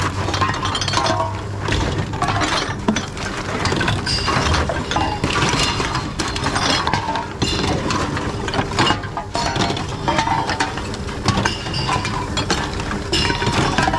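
Glass bottles and aluminium cans clinking and knocking together as they are picked out of a full tote and fed one after another into a TOMRA reverse vending machine, with the machine's mechanism running.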